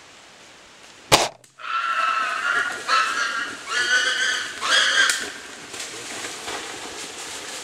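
A PSE X-Force compound bow fires about a second in with one sharp crack. The arrow-hit Russian boar then squeals in four harsh bursts over the next few seconds and crashes off through dry leaves.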